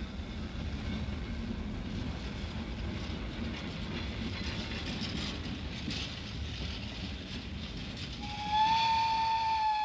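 A train rolling slowly past: a steady low rumble of wheels on the rails with a few faint clacks, from a steam locomotive towed dead, not under its own power. About eight seconds in, a locomotive whistle starts one long steady note, louder than the rumble.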